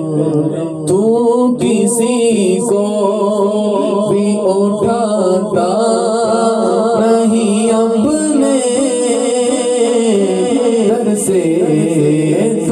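A man singing a naat unaccompanied into a microphone, long melismatic held notes run through a powered mixer's echo effect so each phrase trails off in repeats.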